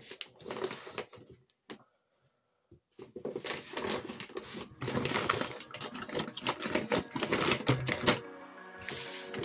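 Rustling and crinkling of a thin synthetic mesh laundry bag, with scattered clicks, as shoes are handled and pushed into it: a few rustles at first, then a denser stretch of crackly handling. Music comes in near the end.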